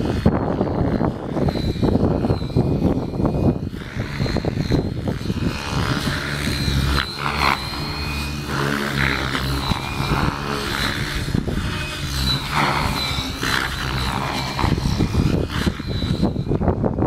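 Electric 700-size RC helicopter in flight, its Align 700MX motor and Radix 600 mm rotor blades giving a steady high whine that wavers a little in pitch. Strong wind rumbles over the microphone, heaviest near the start and end.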